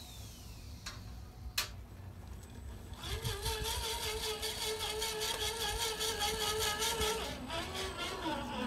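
A small electric motor whining at a steady pitch for about four seconds, then slowing with a falling pitch near the end. A sharp click comes earlier, about a second and a half in.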